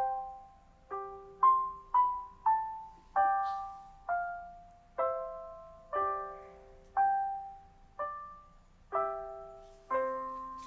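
Gentle, slow piano music: single notes and small chords struck about once a second, each left to ring and fade.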